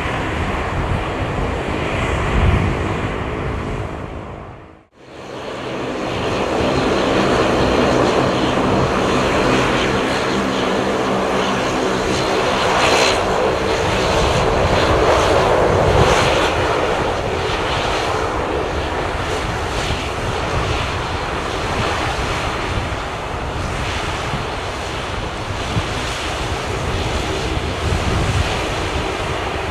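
Airbus A220-300's Pratt & Whitney PW1500G geared turbofans running, with steady engine tones. The sound cuts out for an instant about five seconds in, then comes back and swells to its loudest near the middle before easing slightly.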